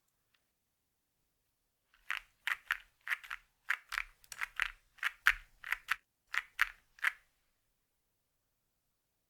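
Mechanical keyboard with TECSEE Diamond switches in a gasket-mount acrylic case being typed on: a run of crisp keystroke clacks, about three a second, starting about two seconds in and stopping about five seconds later.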